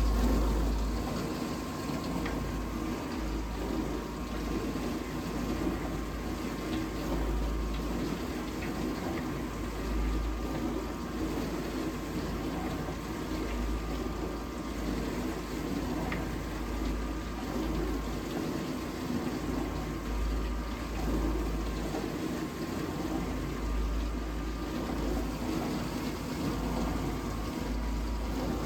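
Vintage dishwasher running its wash cycle: the circulation pump runs steadily while water sprays and sloshes inside the tub, with a low rumble that swells and fades every second or two. The water no longer hits the tub at full force, which the owner suspects means a restricted pump.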